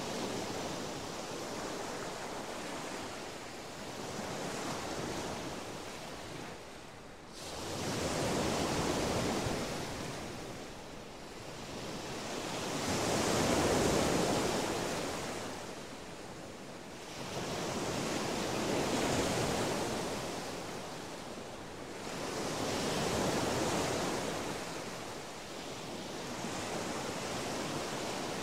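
Ocean surf: waves breaking and washing in, swelling and fading every four to five seconds, with an abrupt rise about seven seconds in.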